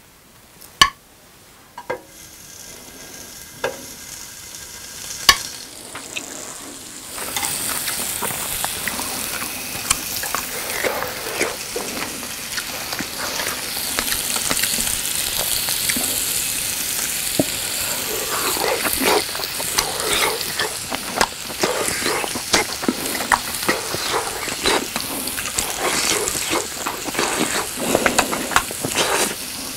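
Slices of grilling cheese sizzling and crackling on a hot electric grill plate, with many small pops. A few sharp clicks come first, and the sizzle starts about seven seconds in.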